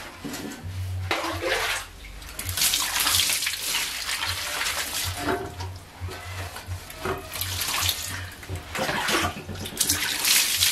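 A bicycle frame being scrubbed with a soapy sponge on a wet tiled floor, with irregular rubbing strokes and water splashing and sloshing.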